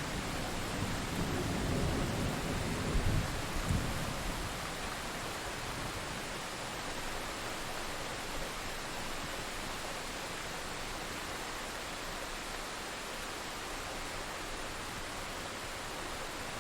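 Thunder rumbling and dying away over the first four seconds, over steady heavy rain; then only the rain's even hiss.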